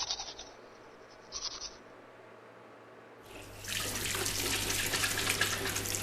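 Toothbrush scrubbing that stops about half a second in, with one more short brushing stroke, then a water tap turned on about three seconds in and running steadily into a sink.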